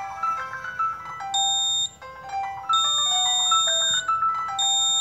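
Piezo buzzer on a Hall effect magnet-polarity circuit sounding a steady, shrill beep three times, each lasting half a second to over a second, as the magnet's detecting pole is brought to the sensor; background music plays throughout.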